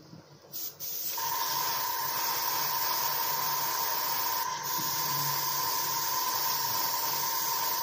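Gravity-feed airbrush spraying: a steady hiss of air and paint that starts about a second in, with a steady high whistle over it and a brief let-up about halfway through.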